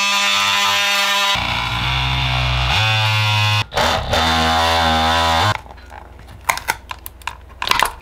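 Cordless oscillating multi-tool buzzing with a steady whine, then cutting into the plastic battery case from about a second and a half in, its pitch dropping under load. It stops about five and a half seconds in, followed by light clicks and clatter as the cell pack is handled.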